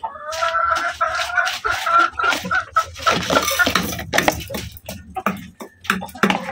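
A chicken gives one long, drawn-out call for about two seconds. Then comes a run of quick taps as a hen pecks feed from a bowl.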